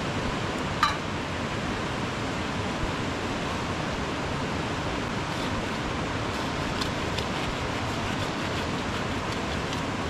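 Steady rushing of a mountain stream, with one sharp click about a second in and a few faint ticks later.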